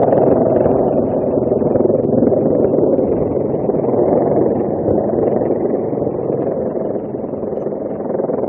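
Helicopter hovering overhead, a steady, loud drone of rotor and engine noise.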